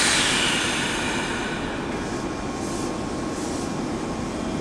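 Meitetsu 6500 series electric train standing at the platform: a loud burst of compressed-air hiss that fades away over about two seconds, over a steady low rumble. Later come a couple of faint short hisses.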